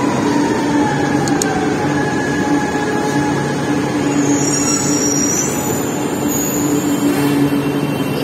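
Chennai Metro train running alongside the platform as it slows: a steady loud rumble of wheels and running gear, with a motor whine falling in pitch in the first second or so. A high squeal from the wheels or brakes comes and goes between about four and seven seconds in.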